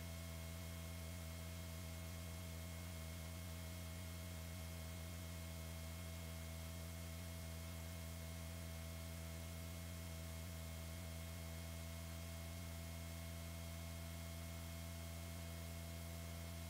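Steady electrical hum with a faint even hiss, unchanging throughout, with no other sound over it.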